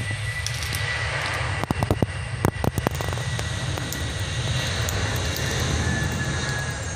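Narrow-body jet airliner's engines at takeoff power as it rolls down the runway: a steady low rumble with a thin high whine. A burst of sharp clicks comes about two seconds in.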